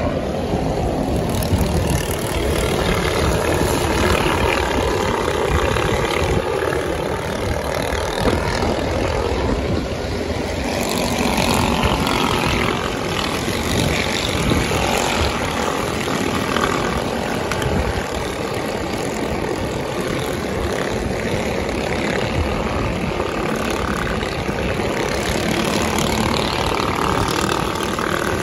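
Several mini bikes riding past in a stream, their small engines making a steady drone mixed with road traffic.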